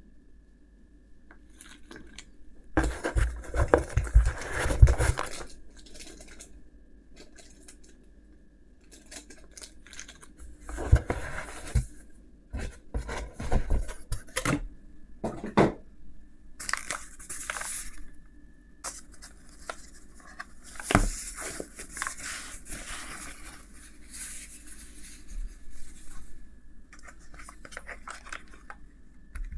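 Keyboard packaging being opened and handled: several bursts of rustling and tearing, with a few dull thumps.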